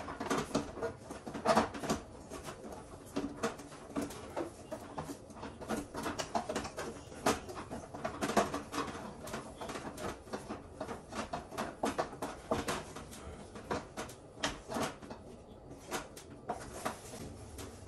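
Spatula stirring and scraping thick dhindo, a stiff flour porridge, in a frying pan: a continuous run of irregular short scrapes, knocks and sticky slaps against the pan.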